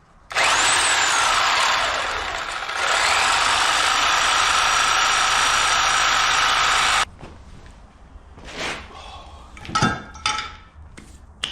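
Power tool, most likely an angle grinder, spinning up with a rising whine and cutting through one of the bumper's mounting bolts. It runs for about seven seconds, dips in pitch as it bites in, and then stops suddenly. A few short knocks follow.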